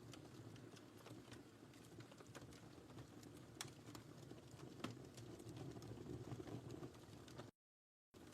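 Wood fire burning in a fireplace: a steady low rumble of flames with frequent irregular crackles and sharp pops. The sound cuts out completely for about half a second near the end.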